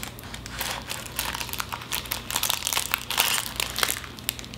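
Crinkly plastic wrapping around a wave brush crackling as it is handled and pulled out of its box: an uneven run of crinkles.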